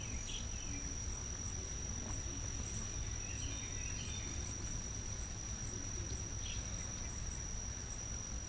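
Insects singing outdoors: one steady, unbroken high-pitched trill.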